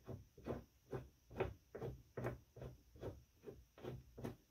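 Cheap aftermarket dryer drum roller with a red plastic hub, turned by hand on its shaft: a soft rubbing swish repeating about two to three times a second. The roller is all sticky as it turns, a sign of its failing bearing.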